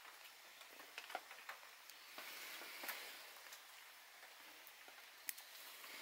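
Bonsai scissors snipping twigs and leaves on a small satsuki azalea: a few quiet, sharp clicks, the loudest about five seconds in.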